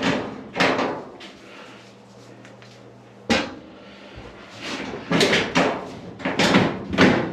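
Sheet-metal panels and parts of a clothes dryer cabinet being handled during reassembly: a series of clunks and knocks, one sharp one about three seconds in and several more near the end.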